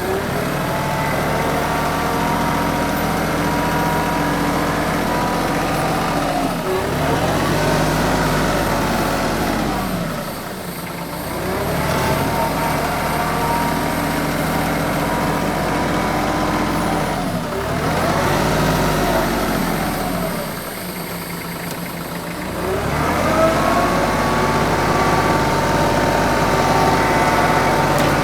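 TYM 2515H compact tractor's diesel engine running while the tractor works hydraulics to pack dirt. The engine speed sags and recovers four or five times as loads come on and off.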